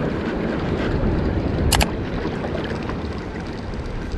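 Steady wind and sea noise around a small open fishing boat on the water, with a brief high hiss about a second and a half in.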